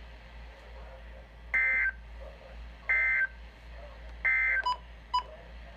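Three short bursts of the Emergency Alert System's digital data tones, a harsh warbling buzz, about a second and a half apart, followed by two brief pips. Bursts this short are typical of the end-of-message code that closes a NOAA Weather Radio alert.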